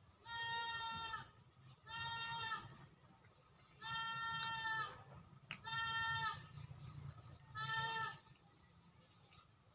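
A farm animal bleating five times in a row, each call under a second long.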